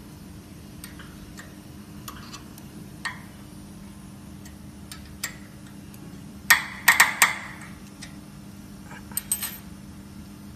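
Small metal clicks and taps from hand tools on the steel holder of a bonding machine's quartz bar as its screw is tightened, with a burst of four sharp clicks a little past halfway and a few more near the end. A steady low hum runs underneath.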